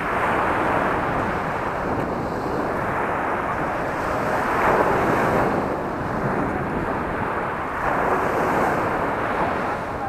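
Surf breaking and washing up a pebble beach, swelling and easing with each wave, with wind on the microphone.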